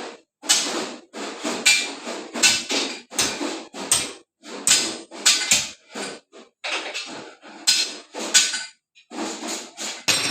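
Repeated sharp metal clanks and knocks from square iron bar being worked in a bending machine, irregular at about one to two a second, some leaving a short ring.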